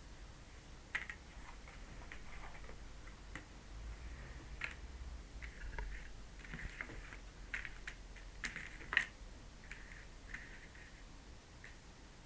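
Tarot cards being handled on a table: soft rustles and irregular small clicks and taps, with a sharper click about 9 seconds in.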